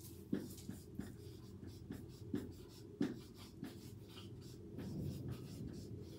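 Whiteboard marker writing on a whiteboard: a quiet run of short, irregular strokes and taps as letters are written.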